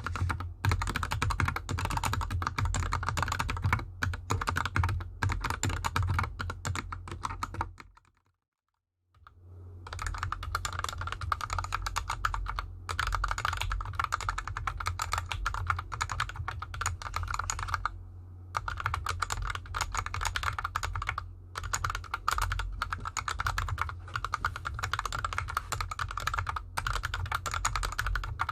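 Fast continuous typing on a GK64X mechanical keyboard with hand-lubed linear Gateron Yellow switches and DSA keycaps, a dense run of key clicks with a deep thock under them. The board sits on the bare desk at first; after a second of silence about eight seconds in, the typing resumes with the keyboard on a desk mat over an artificial grass mat.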